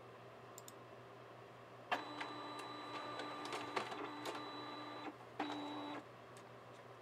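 Epson DS-510 sheet-fed scanner's feed motor running with a steady hum for about three seconds, stopping briefly, then running for another half second. It is feeding a card in a plastic penny sleeve, and the rollers pull the sleeve off the card.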